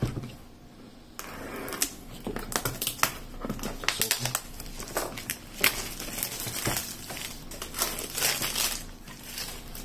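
Thin plastic shrink wrap crinkling and crackling as it is cut and peeled off a boxed smartphone. It is a dense run of sharp crackles that starts about a second in.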